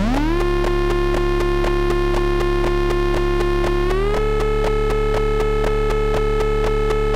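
Finegear ModMix analog mixer in a no-input feedback loop, making a dirty synth tone. The tone sweeps up in pitch at the start, holds, then steps up higher about four seconds in. Under it run a fast, regular ticking pulse and a low hum.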